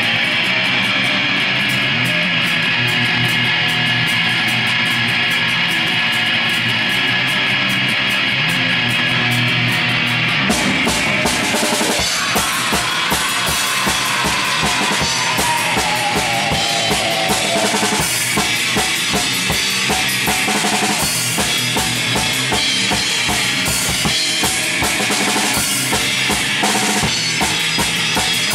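Death metal band playing live: heavily distorted electric guitar over a drum kit with busy bass drum and snare, and a growled vocal in the middle. About ten seconds in the drumming changes to a new pattern with steady bass drum hits.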